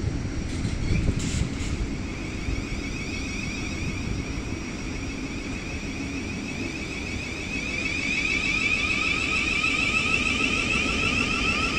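Class 707 Siemens Desiro City electric multiple unit pulling out along the platform: a steady low rumble of wheels on rail, with the electric traction whine growing louder from about eight seconds in as the train gathers speed.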